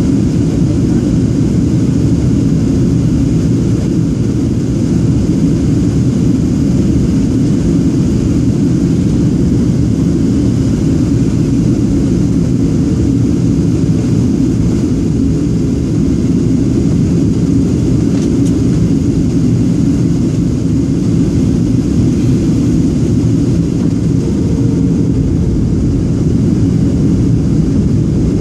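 Steady cabin noise aboard a Boeing 737-700 descending on approach: a deep, even rumble of its CFM56-7B turbofan engines and the air rushing past the fuselage, heard from inside near the wing.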